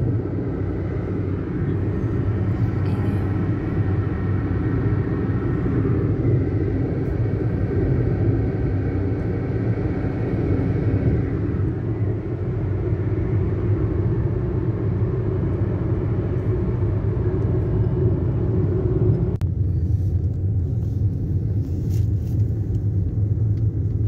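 Steady low rumble of a car driving at highway speed, heard from inside the cabin. About three-quarters of the way through, the higher hiss drops away, leaving the low rumble.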